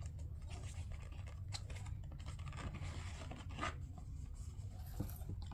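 Faint rubbing and scraping of a cardboard retail box being handled and its bottom flap opened, a few light scrapes scattered through, the clearest about three and a half seconds in, over a low steady hum.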